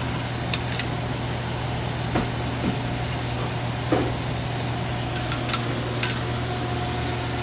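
Eggplant strips frying in hot oil in a saucepan, a steady sizzle and bubbling over a constant low hum, with a few light clicks of a metal slotted spoon against the pan.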